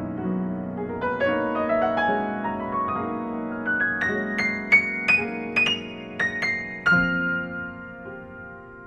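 Background piano music: a run of notes climbing steadily higher, then a held chord that slowly fades.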